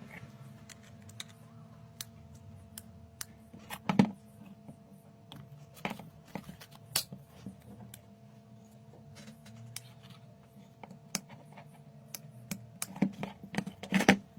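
Irregular small clicks and taps of hard parts being handled, with louder knocks about four seconds in, around six to seven seconds, and a cluster near the end, over a faint steady hum.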